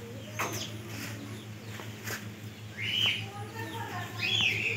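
Short arched bird chirps, a few in all, loudest about three seconds in and again near the end, over a steady low hum.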